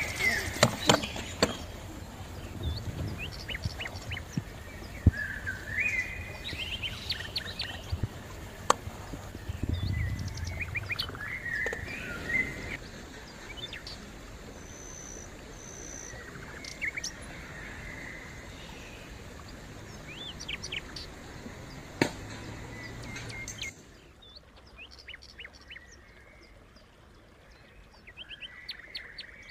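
Wild birds chirping and calling over the steady rush of a shallow stream, with a few sharp clicks. About 24 s in the stream noise drops away abruptly, leaving quieter bird calls.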